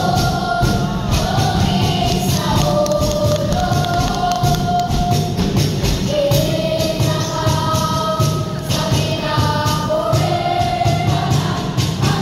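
Children's choir singing long held notes over a steady percussion beat, amplified through stage loudspeakers.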